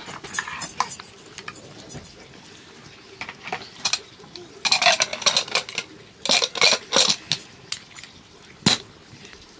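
Metal utensils clinking and scraping against metal dishes, in irregular bursts of clinks with a sharp single clink near the end.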